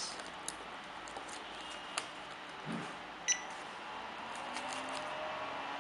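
Small plastic clicks and taps as the balance-lead plugs of a drone LiPo battery are handled and pushed into a balance board. One click about three seconds in carries a brief high ring. A faint steady low hum comes in about two-thirds of the way through.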